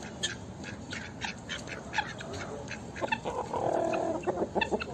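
Hens clucking in a run of short clucks, with a longer call about three seconds in.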